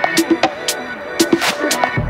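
Electronic background music with sharp percussion hits and short mid-range notes; the deep bass drops out in this stretch.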